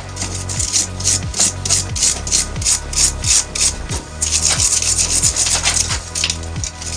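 Hand scrubbing carbon deposits off Moskvich 412 cylinder-head parts: rapid, regular rubbing strokes, about three a second, with a brief pause about four seconds in.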